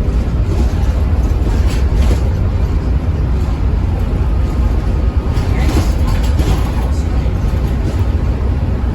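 Diesel bus engine and drivetrain running with a steady low rumble, with brief spells of hissing noise about two seconds and six seconds in.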